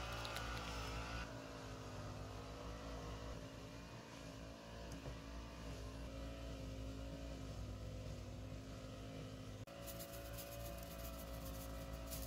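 A steady, quiet mechanical hum with a low drone and several held tones, shifting in pitch at cuts; near the end, fine rapid ticking is added on top.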